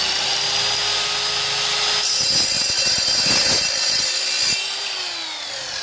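Evolution EVOSAW180HD 7-1/4-inch steel-cutting circular saw running at full speed with a steady high whine. From about two seconds in, a harsh grinding rasp joins it for about two and a half seconds as the blade cuts through a square steel bar. Near the end the trigger is released and the motor's whine falls in pitch as it winds down.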